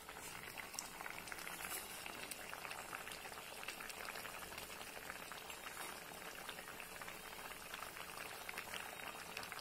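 Watery mustard-poppy curry gravy boiling hard in a metal kadai, after water has been added to the spiced paste: a steady, dense bubbling with many small pops.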